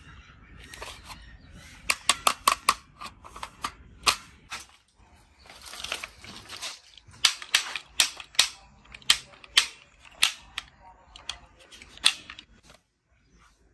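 Plastic toy pistol styled on a broomhandle Mauser being worked and fired, giving sharp plastic clicks and snaps: a quick run about two seconds in, a longer string from about seven to ten seconds, and a last one near twelve seconds, with a rustle of handling in between.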